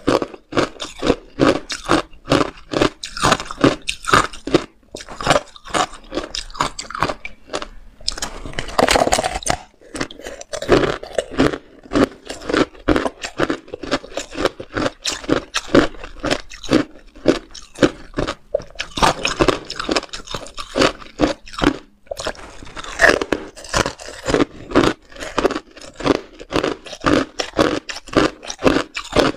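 Chewing and crunching frozen pomegranate arils encased in hard ice, a rapid run of crisp crunches several a second, picked up by a clip-on mic close to the mouth.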